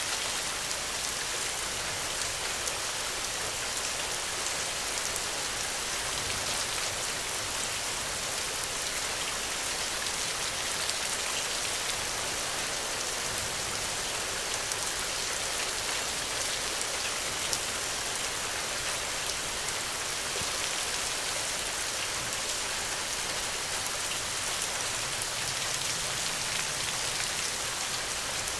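Steady rain falling: an even, unbroken hiss with fine scattered drop ticks through it.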